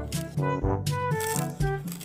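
Background music: a bouncy tune of short notes over a bass line and a steady beat.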